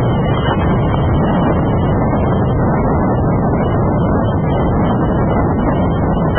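Steady low rumble of a BNSF intermodal freight train climbing the grade, its diesel locomotives working and cars rolling, heard at a distance.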